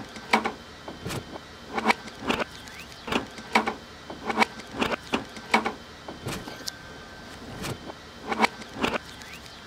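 2011 Dodge Charger trunk unlatching and the lid swinging open, the newly replaced release button now working. A run of sharp clicks repeats about every half second to a second, with a faint steady high tone underneath.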